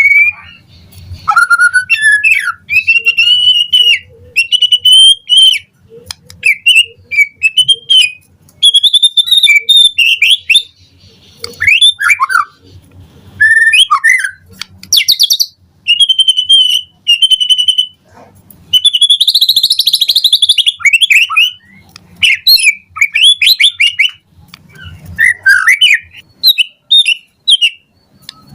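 White-rumped shama (murai batu) singing a long, varied song of rapid whistled phrases, slurred notes and trills. It comes in bursts of about a second with brief pauses between them, and includes a harsher, buzzy phrase about two-thirds of the way in.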